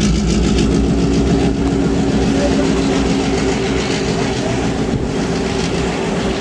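EMD FP7 diesel locomotive passing directly underneath, its 16-cylinder EMD 567 engine running with a steady drone under load, then the rumble of its passenger cars rolling along the rails.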